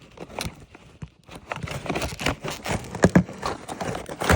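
Cardboard toy box being handled and pulled open: irregular clicks, knocks and crackles, sparse at first and busier from about a second and a half in.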